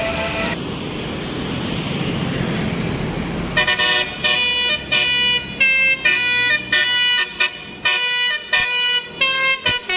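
Bus telolet horn, a Basuri multi-tone air horn, playing a quick melody of short blasts that change pitch from one to the next, starting about a third of the way in after a few seconds of rushing noise.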